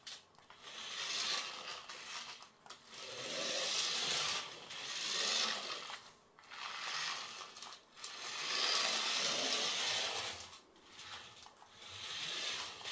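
Battery-powered toy RC mini truck's small electric motor and gears whirring as it drives and spins on a laminate floor. The whirring comes in repeated runs of one to three seconds, with short breaks between them as the throttle is let off.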